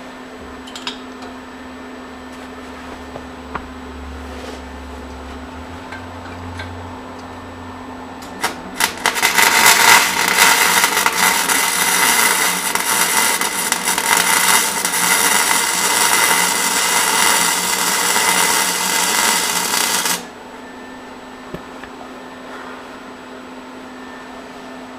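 Wire-feed (MIG) welder laying a bead: a low steady hum with a few clicks, then the arc crackling and sizzling steadily for about eleven seconds, cutting off abruptly.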